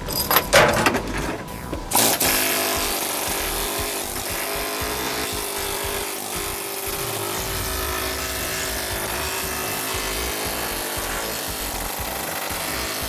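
Pneumatic air chisel hammering into the rusted sheet-metal lip of a 1972 VW Super Beetle body to chop it off. A few short bursts in the first two seconds, then it runs continuously.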